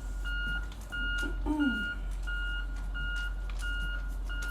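Reversing alarm on a work vehicle, beeping steadily at about two beeps a second over a low engine hum. A short falling voice is heard about a second and a half in.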